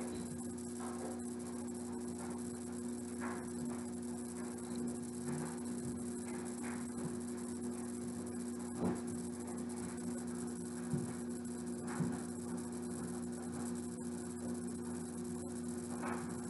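A steady low electrical hum, with a few soft rustles and light taps as nautical rope is wrapped and pressed around a plastic hula hoop.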